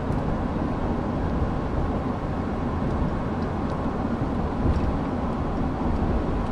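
Steady road and engine noise heard inside the cabin of a car driving along a highway.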